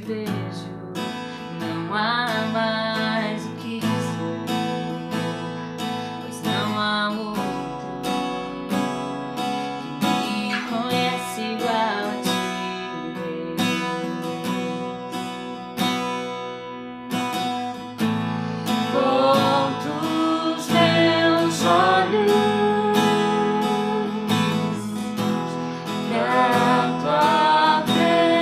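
Acoustic guitar strummed in a steady rhythm under a voice singing drawn-out phrases of a gospel worship song.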